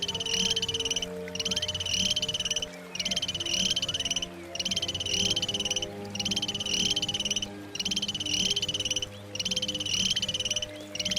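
An animal call: a high, rapid buzzing trill, each one about a second and a half long with short breaks between, repeated very regularly, over background music with sustained notes.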